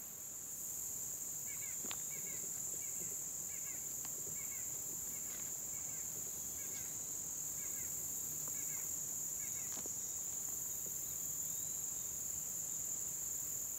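A steady, high-pitched chorus of insects buzzing without a break, with faint short chirps repeating over it for several seconds and a couple of faint clicks.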